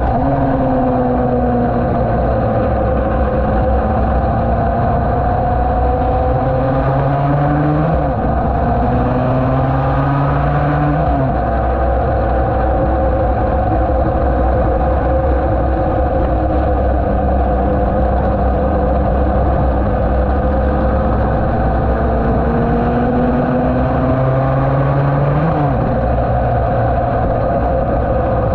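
Yamaha TD1B racing motorcycle's two-stroke twin running at speed on track: the pitch climbs and drops sharply at gear changes three times, twice in the first third and once near the end, with a long steady stretch in between.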